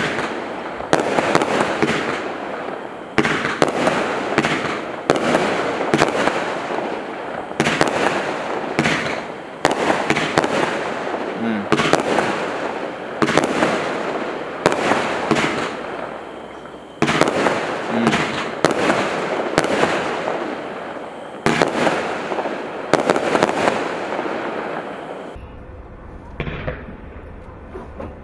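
Kimbolton Feudal Lords 19-shot firework cake firing, shot after shot at about one a second, each a sharp bang of a bursting shell with a fading tail. The shots stop about 25 seconds in.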